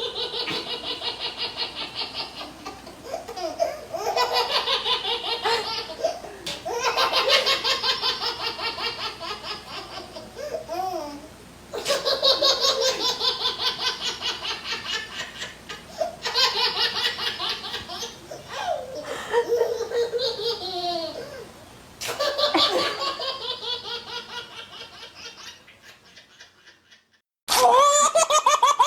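A small child laughing in long bouts of quick, repeated belly laughs, with short breaths between bouts. Near the end the laughter fades to a brief silence, then a louder laughing bout starts.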